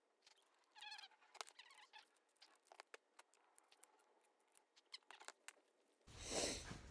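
Faint light clicks and ticks of small metal engine parts being handled, the cleaned power valves of a YZ125 two-stroke being fitted back into the cylinder, with a brief high chirp about a second in.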